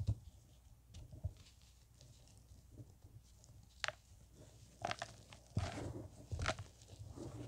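Pressed blocks of powder being squeezed and crumbled by hand into loose powder: soft crunches and crackles with dull thuds, sparse at first and coming thicker and louder in the second half.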